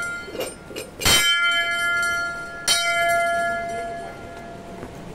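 Hanging brass temple bells struck by hand: a loud strike about a second in and another near three seconds, each ringing on with several clear tones and fading over a couple of seconds, over the fading ring of a strike just before.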